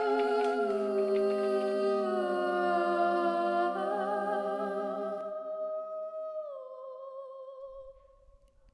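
Background film music of wordless voices humming held chords with a slight waver, the notes shifting every second or two. The lower part drops out about five seconds in, and the last high note fades away near the end.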